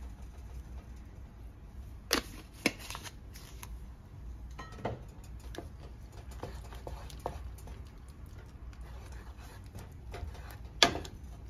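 Paprika shaken from a glass spice jar onto a thick cream sauce, then a wooden spoon stirring it in the pan, with a few sharp clicks and knocks, the loudest near the end.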